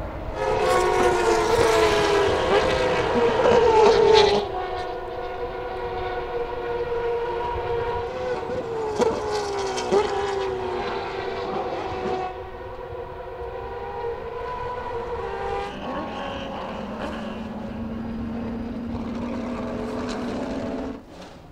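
Turismo Carretera race car engines running hard on track, their pitch sliding down and climbing again as the cars lift, shift and accelerate. The first few seconds are the loudest.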